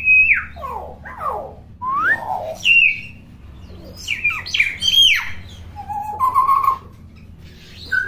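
Common hill myna calling in a fast run of whistled notes, many sliding sharply up or down, with a few lower warbling notes near the end.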